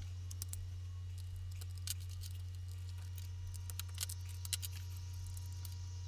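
Low steady hum with a few faint clicks scattered through it.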